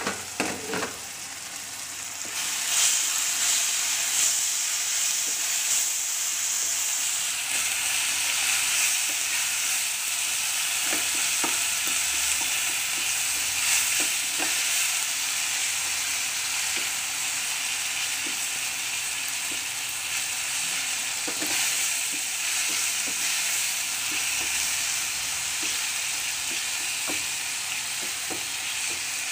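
Onion, tomato and turmeric masala sizzling in oil in a non-stick pan, sautéing on a low flame, with a spatula scraping and tapping as it is stirred. A few knocks at the very start, and the sizzle grows louder about two seconds in.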